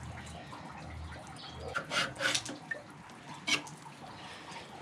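A knife cutting and scraping through raw tuna loin on a metal tray: a few short wet slicing scrapes about two seconds in and again near three and a half seconds.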